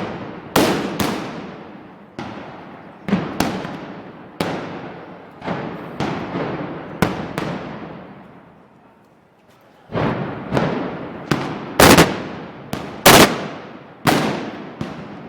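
A rapid, irregular series of loud gunpowder bangs, about fifteen in all, each followed by a long echoing decay. The bangs pause for about two seconds just past the middle, then resume with the loudest near the end.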